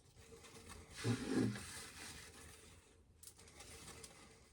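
Quiet room tone with a brief soft voice-like murmur about a second in and a faint click a little past the middle.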